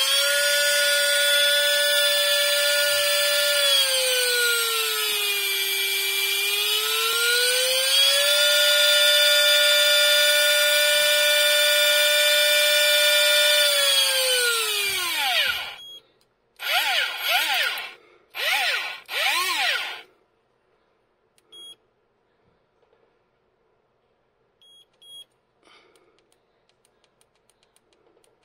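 Shimano Force Master 800 electric fishing reel's motor whining as it spins the spool, running unloaded. The pitch dips and comes back up partway through, then the motor winds down about fifteen seconds in. Three short spin-ups follow, then faint beeps and button clicks as the reel's menu is worked.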